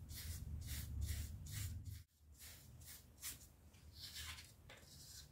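Foam sponge dabbing and rubbing paint onto an EVA foam piece: faint, soft strokes, about two a second.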